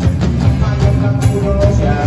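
Live rock band playing, with electric guitars over a drum kit keeping a steady beat.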